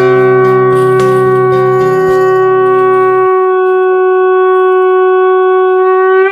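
Conch shell (shankha) blown in one long, steady note, with a lower tone beneath it that stops a little past halfway. The note lifts slightly just before it cuts off at the end.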